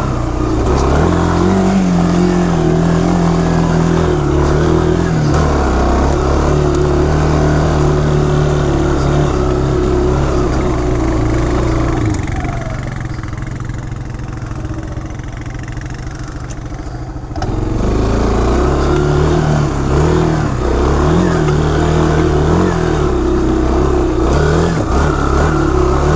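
ATV engine running under changing throttle while riding a dirt trail, its pitch rising and falling. About halfway through it quiets for about five seconds, then comes back suddenly as the throttle opens again.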